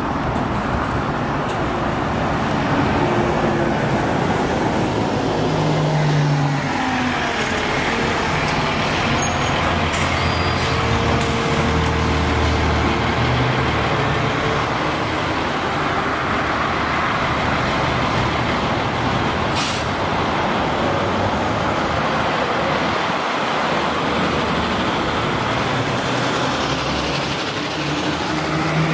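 2010 New Flyer DE60LF diesel-electric hybrid articulated bus driving past and pulling up at a stop, then idling with its engine running steadily. A short hiss of air sounds about two-thirds of the way through.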